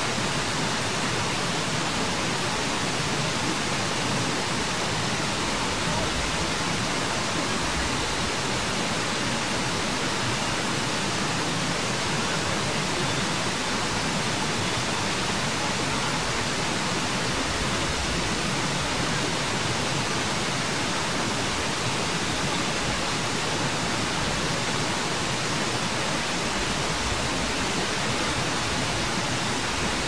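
Steady, even hiss with no distinct events, like rushing water or heavy recording noise.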